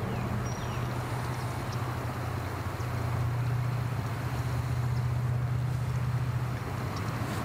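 Suzuki outboard motor on a small fishing skiff running with a steady low hum.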